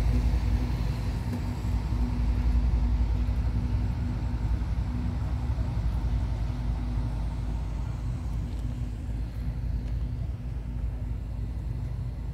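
Diesel locomotive of a loaded coal train running steadily at low speed: a low rumble with a constant hum, slowly fading as it pulls away.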